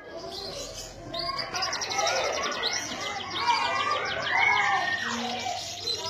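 Domestic canary singing a long, continuous song of rapid trills and warbling glides.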